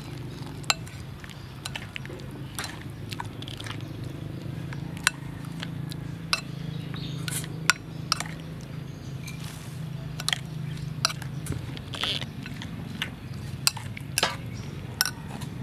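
Metal spoon stirring a sauce in a ceramic bowl, clinking against its sides in irregular sharp taps over a steady low hum.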